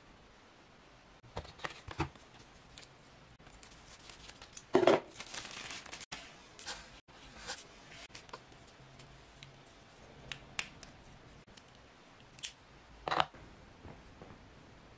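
Handling noise: a thin packaging sleeve rustling and crinkling, with scattered light clicks and taps of small plastic camera accessories being picked up and set down. A louder rustle comes about five seconds in and a shorter one near the end.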